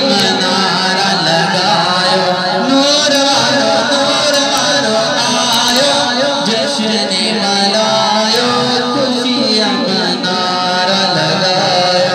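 A man singing a Sindhi naat (devotional song praising the Prophet), holding long notes that bend and waver in pitch.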